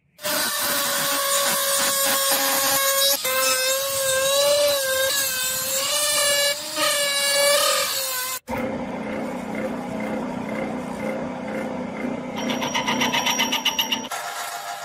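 Power tool working metal, running with a whine that wavers in pitch as it is loaded. After a sudden cut about eight seconds in, a lower machine hum follows, with fast rhythmic scraping near the end.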